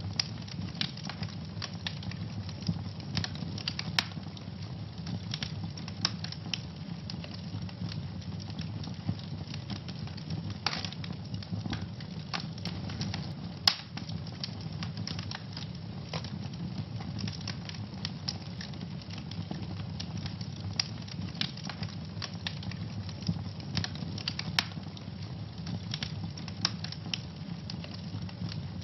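Wood fire burning in a fireplace: a steady low rumble of the flames with frequent irregular crackles and snaps, and a few louder pops.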